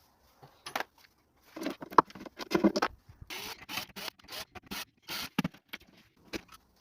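Irregular scraping, rustling and clicking, like things being handled and moved about, busiest about two to three seconds in.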